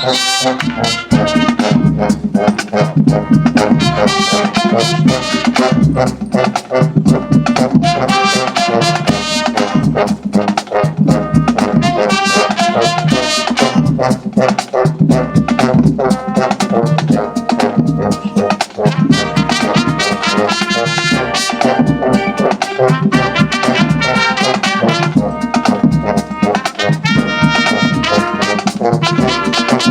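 High school marching band playing loudly: full brass chords from trumpets and trombones over drums.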